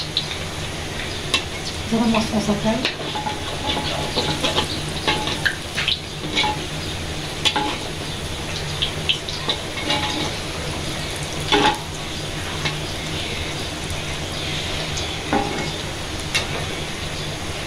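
Piyaju, lentil and onion fritters, deep-frying in hot oil with a steady sizzle. A metal spatula scrapes and taps against the pan now and then as it turns them.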